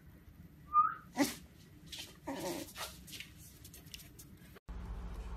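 A person whistles a short rising note, and a puppy answers with two short whimpering yelps, about a second and about two and a half seconds in, followed by a few light clicks. Near the end the sound cuts off abruptly into a steady low hum.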